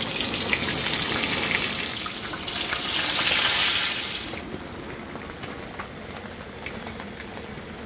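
Whole spiced quail deep-frying in a pot of hot oil: a loud, even sizzle for about four seconds, then dying down to a softer crackle with a few scattered pops.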